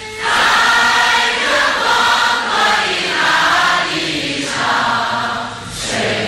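A large crowd singing a Chinese Christian worship song together.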